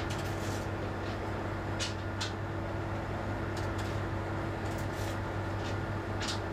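Tugboat engine running steadily under load, a constant low drone heard inside the wheelhouse as the tug pushes to hold a barge against the swell. A scattering of short sharp clicks and knocks sounds over it.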